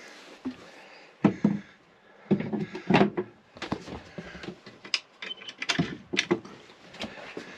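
Wooden companionway steps being set back into their slots by hand: a run of wooden knocks and clunks with sharper clicks, the loudest about three seconds in.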